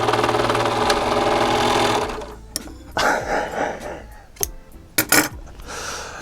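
A White serger (overlock machine) runs at speed with a fast, even stitching rhythm and stops about two seconds in. A few clicks and a rustle follow, with two sharp clicks near the end.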